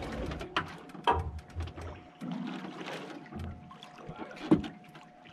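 Hooked shark splashing and thrashing at the water's surface beside a boat's hull, with scattered knocks and a single loud thump about four and a half seconds in.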